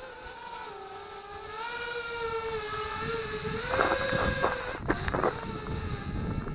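Redcat Carbon 210 racing quadcopter's four 2204 2500KV brushless motors whining in flight. The pitch wanders with the throttle and steps up about four seconds in. Wind buffets the microphone.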